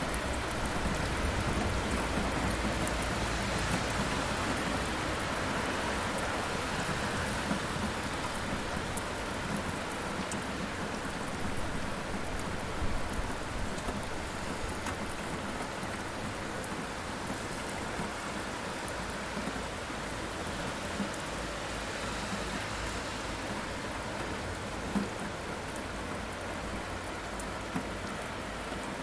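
Steady rain falling on a surface, with a low thunder rumble that dies away over the first several seconds. A few louder single drops or taps stand out later on.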